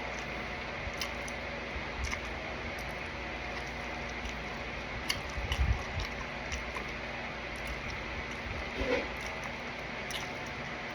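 Quiet sounds of a person eating: soft chewing and mouth sounds with scattered small clicks, a few soft thumps about halfway through and a short low hum near the end, over a steady background hum.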